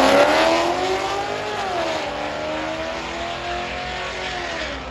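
Drag car engine accelerating hard down the strip, its note climbing and dropping sharply twice as it shifts gears, growing fainter as the car pulls away.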